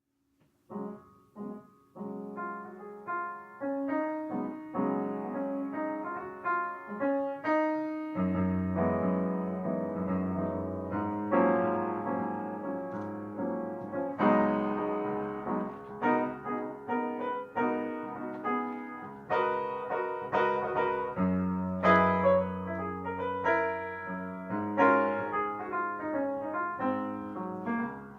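Piano music: a solo piano piece in struck, decaying notes and chords, with a low bass line coming in about eight seconds in.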